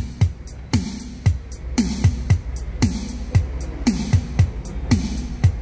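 Music playing from a CD through a Panasonic SA-PMX80 mini hi-fi system's speakers: a deep kick-drum beat, each hit dropping in pitch, about two a second, with sharp cymbal ticks on top.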